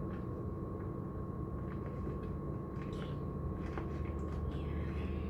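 A steady low background hum with a thin constant high whine, and a few faint soft clicks.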